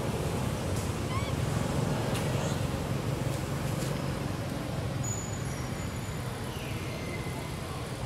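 Steady low rumble of outdoor background noise, with a few faint short chirps over it.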